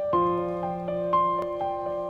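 Background music: a gentle keyboard melody of evenly spaced notes, about four a second, over held chords that change just after the start.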